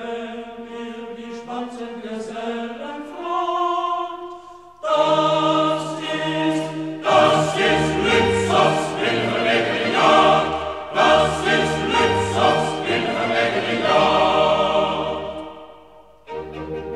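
Men's choir with orchestra singing a German choral song. It starts softly, swells to full loudness about five seconds in with two short breaks, dies away near the end and starts up again just before the end.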